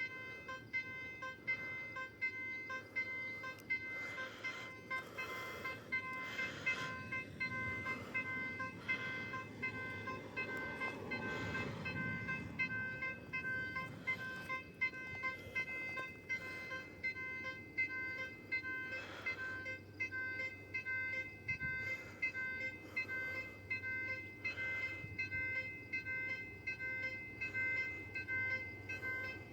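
An electronic alarm-like tone sounding steadily and pulsing over and over, with a low rumble swelling and fading around the middle.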